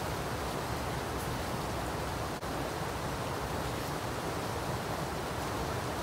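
Waterfall water rushing, a steady even rush of noise with no pitch, broken only by a split-second dropout about two and a half seconds in.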